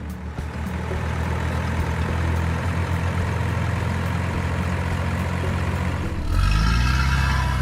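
Heavy vehicle diesel engine idling with a steady low rumble. About six seconds in it grows louder and a higher whine joins it, as if the engine is put under load.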